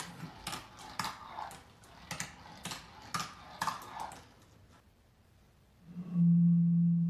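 Toy cars clattering down a zigzag car ramp toy, with sharp clacks about twice a second as they drop from tier to tier. About six seconds in, a loud, steady low hoot starts: breath blown across the mouth of an empty glass bottle.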